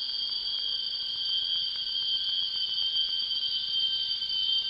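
Tropical rainforest insect chorus: a steady, shrill, high-pitched drone that does not let up, with faint ticks beneath it.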